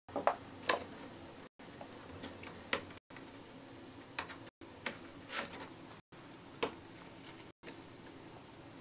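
Scattered light clicks and scuffs, irregular taps, from a hamster handling a bone-shaped biscuit as it moves across a wooden floor and in and out of a cardboard box, over a steady faint hiss.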